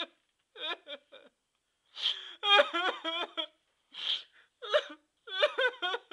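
A man's stage-acted sobbing: wavering, wailing cries in short broken bursts, with gasping breaths between them.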